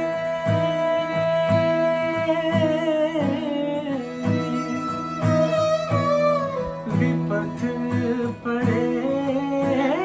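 Acoustic guitar strummed in a steady rhythm, with a sarangi bowing a sustained melody over it and a man singing at times.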